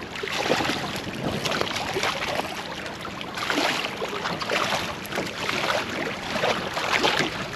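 Sea water splashing and lapping against the side of a small boat while a hooked bass splashes at the surface alongside, with wind buffeting the microphone.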